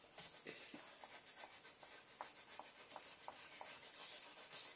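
Faint pencils scratching on paper in many short strokes. About four seconds in, a louder paper rustle as a sheet slides on the table.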